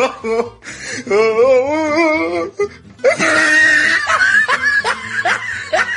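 Looping comedy soundtrack: a wobbling sung tone, then a stretch of quick, high, rising laugh-like sounds.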